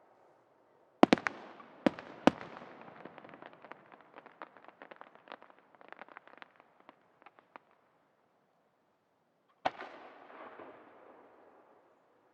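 Aerial firework shells bursting: four sharp bangs about a second in, followed by several seconds of rapid small pops. After a short lull, one more bang near the end, its rumble echoing away.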